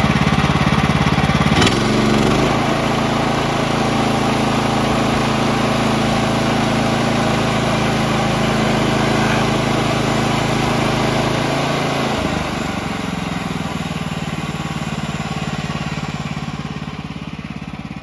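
Woodland Mills HM130 MAX portable band sawmill with its gas engine running steadily. The engine note shifts about two seconds in and again around twelve seconds, and the sound then gradually gets quieter.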